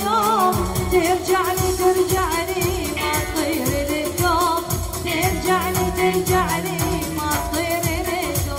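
Arabic pop song: a woman singing an ornamented, wavering melody over band accompaniment with a steady drum beat.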